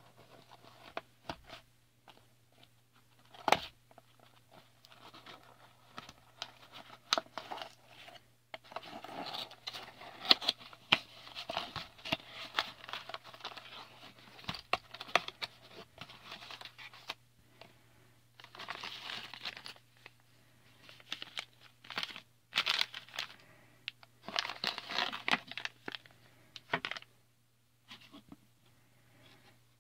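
A small cardboard box being opened and its contents unpacked: sharp clicks and taps of the lid and flaps, with a loud click about three and a half seconds in, then long stretches of plastic bags crinkling as they are lifted out and set down.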